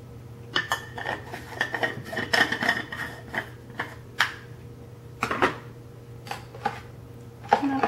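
Makeup containers and compacts clicking and clattering against each other as they are rummaged through: a quick run of clicks and knocks for the first few seconds, then a few scattered taps.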